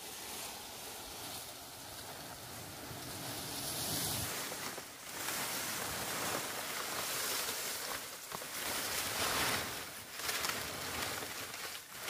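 Dry palm fronds rustling and crackling as they are handled and heaped into a pile, a continuous dry rushing noise that grows louder about four seconds in.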